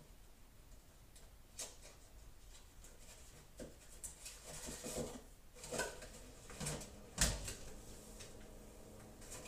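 Scattered knocks and clatter of kitchen things being handled, a few seconds apart, with a cluster of light knocks midway and one sharp knock about seven seconds in.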